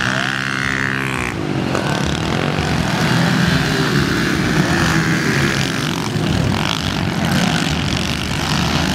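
Several small pit bike engines revving as the bikes race past, with pitches rising and falling as riders work the throttle and shift; the sound changes abruptly about a second in.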